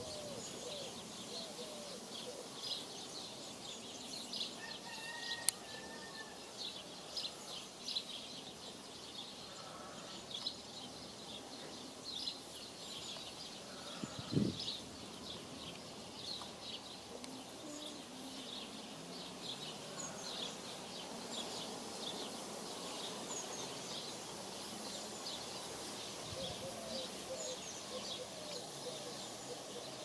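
Small birds chirping, many short high chirps scattered throughout and thickest in the first half, with one sharp click about five seconds in.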